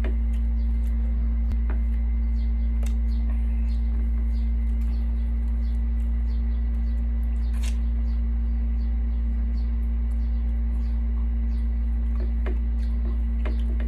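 A steady low electrical-sounding hum with a constant tone above it, under scattered soft clicks and small smacking sounds of people eating with their hands from plates, one click a little louder near the middle.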